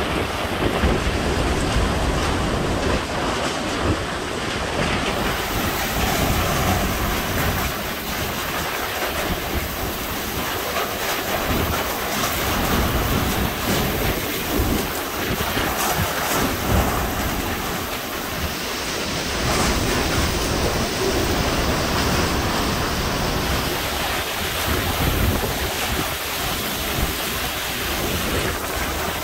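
Hurricane-force wind and driving rain in Hurricane Grace's eyewall: a loud, steady rush that swells and eases in gusts, with wind buffeting the microphone.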